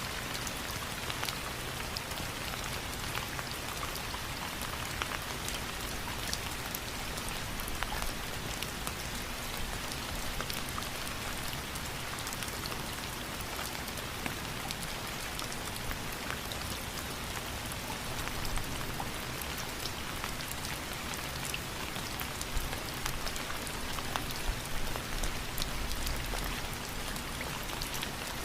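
Steady rain, a dense patter of many individual drops striking a surface, with scattered sharper drop hits throughout.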